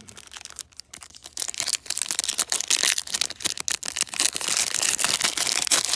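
Foil trading-card pack crinkling and crackling as it is handled and torn open by hand. The crackling starts about a second in and stays dense and busy.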